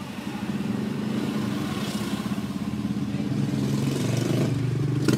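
A motor vehicle engine running steadily, its pitch dropping about four seconds in.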